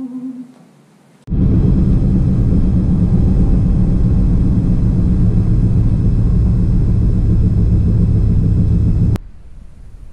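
Loud, steady road and engine rumble of a vehicle driving, heard from inside the cabin. It starts abruptly about a second in and cuts off sharply near the end, leaving a fainter wind-like hiss.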